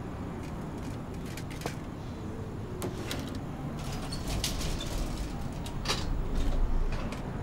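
A bicycle wheeled into a lift, with scattered clicks and knocks over a steady low hum. The lift's sliding doors shut about six seconds in, the loudest part.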